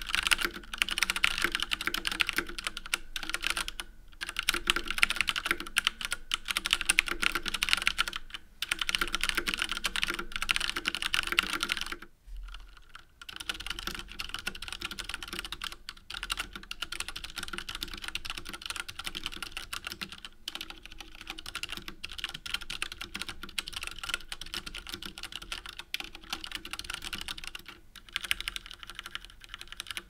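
Fast typing on a Rosewill RK-9000 V2 mechanical keyboard with Cherry MX Red switches, keycaps bottoming out in a dense run of sharp plastic clicks. About twelve seconds in it breaks off, and the same keyboard is heard with rubber O-rings fitted under the keycaps: the typing is quieter and more muffled.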